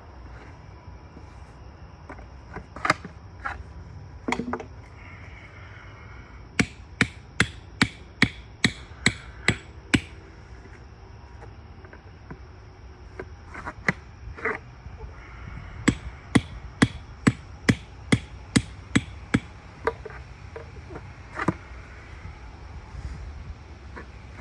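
Hammer blows during assembly of a 3D foam archery target: two quick runs of about eight or nine even strikes, a little over two a second, with a few single knocks before, between and after.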